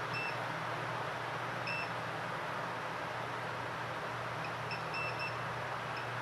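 Steady blowing hiss and hum of a hot-air rework station working on an iPhone 6 logic board, with several short high-pitched beeps: one near the start, one a little after a second in, a quick cluster about five seconds in and one near the end.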